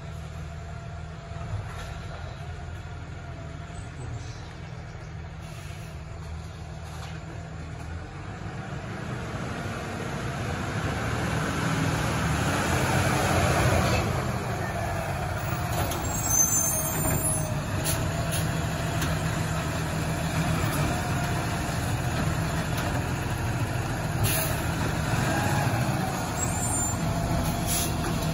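Engine of a New Way Sidewinder automated side-loader garbage truck running as the truck comes up the street and passes, growing louder over the first half. A brief high-pitched air-brake sound comes about halfway through.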